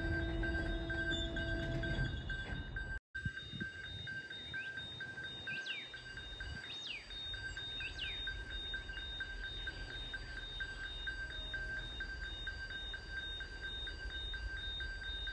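Level crossing warning bell ringing in a fast, steady, even rhythm, with a few short bird chirps a few seconds in. A music track cuts off about two seconds in.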